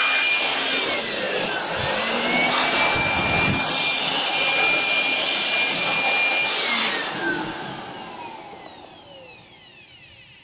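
Handheld electric dust blower running, a loud steady rush of air with a high motor whine that dips briefly about a second and a half in. About seven seconds in it is switched off, and the whine falls in pitch as the motor winds down to a stop.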